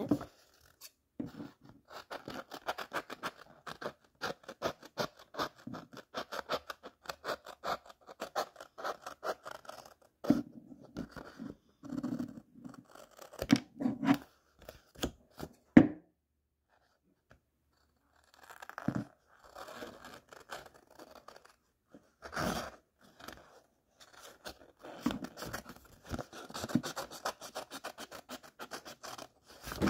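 Scissors snipping through paper in long runs of quick cuts, with the sheet rustling as it is turned; the cutting stops for a couple of seconds just past the middle.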